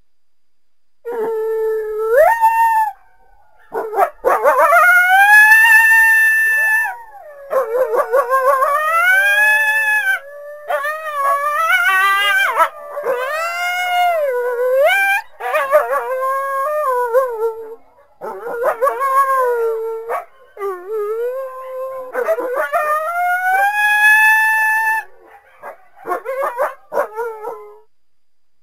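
Coyotes howling and yipping: long wavering howls that rise and fall, mixed with quick broken yips, in several bouts with short pauses between.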